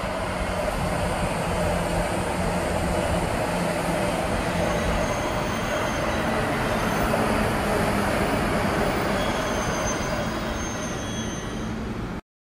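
Recorded sound of a real electric commuter train running on the rails: a steady rumble of wheels on track with a low motor hum and faint high wheel squeals. It cuts off abruptly near the end.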